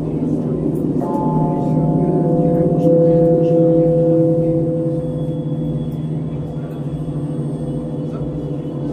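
Dark ritual ambient music from a live set: a dense low drone, with a cluster of ringing tones that come in suddenly about a second in. The strongest of them is held from about two to five seconds in and then fades.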